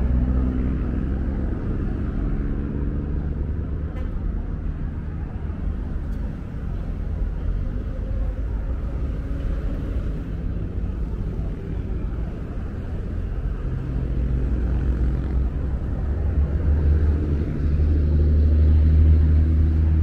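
Road traffic: vehicle engines running with a steady low rumble. A heavier engine grows louder over the last few seconds.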